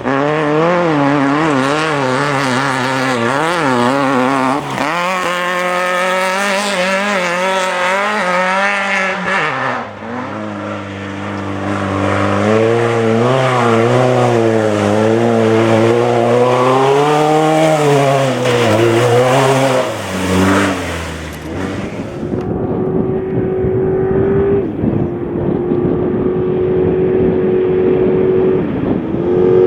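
Off-road race vehicle engines revving hard, their pitch rising and falling as they accelerate and back off, with the sound changing abruptly to another vehicle a few times. Over the last several seconds one engine runs at a steadier, even pitch over a hiss of noise.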